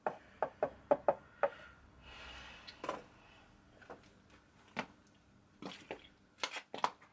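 Light knocks and clicks of small tools and paint pots being picked up and set down on a wooden workbench, scattered irregularly.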